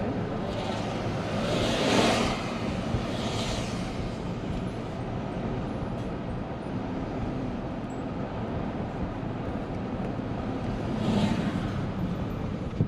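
Steady road traffic noise, with louder swells about two seconds in and again near the end.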